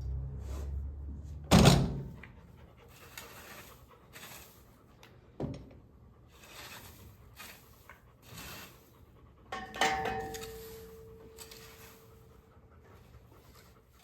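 A heavy knock, a lighter knock a few seconds later, then near the end a metallic clang whose tone rings on for a couple of seconds. Between them come repeated short, breathy sounds.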